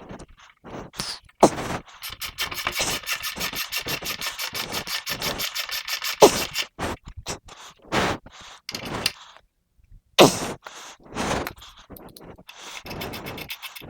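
Socket ratchet clicking rapidly and steadily for about four seconds as the front wheel's axle is run in and tightened, followed by a few separate sharp metal knocks and clanks.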